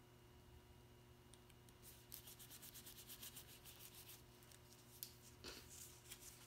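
Faint rubbing of fingers quickly back and forth over cardstock, creasing the folds of a paper box piece, for about two seconds midway, followed by a light click and paper rustle. A steady low hum sits underneath.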